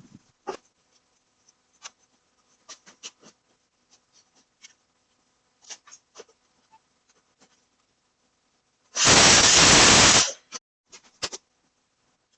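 Scattered light clicks and knocks of handling work. About nine seconds in comes a loud rush of hissing noise lasting a little over a second, then it cuts off.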